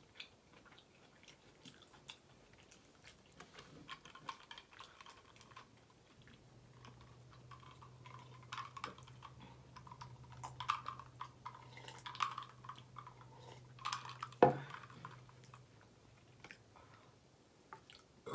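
Close mouth sounds of someone chewing food and sipping soda from a glass, with soft wet clicks. About fourteen seconds in there is one sharp knock as the glass is set down on a wooden board.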